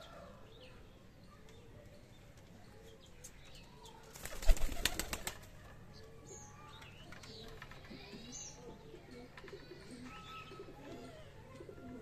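Domestic pigeons in an aviary: a short, loud burst of wing flapping about four and a half seconds in, with soft pigeon cooing and higher bird chirps around it.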